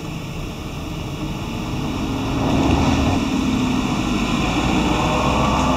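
A motor vehicle's engine running steadily, growing louder about two and a half seconds in and then holding.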